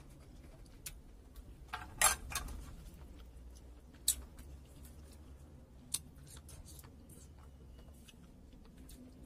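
Close-miked eating: wet clicks and smacks of chewing rice and soft boiled bottle gourd, with scattered sharp clicks of a spoon and fingers against a plate. The loudest cluster comes about two seconds in.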